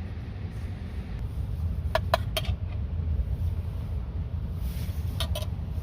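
Steady low rumble of wind buffeting the camp. Over it come a few short, sharp clinks: three about two seconds in and two more near the end, like a utensil striking a metal mess tin during eating.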